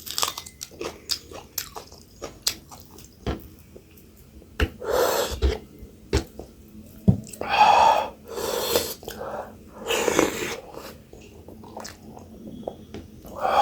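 Close-miked mukbang chewing: a person chewing millet dhido and buff sukuti with many small wet mouth clicks and smacks. A few longer, louder mouth noises come near the middle.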